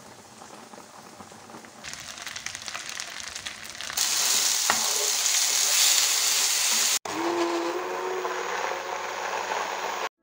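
Cooking sounds in three short takes: a pot of pasta bubbling at the boil, then loud sizzling of meatballs in tomato sauce in a frying pan from about four seconds in, then from about seven seconds an immersion blender's motor whirring in a pot.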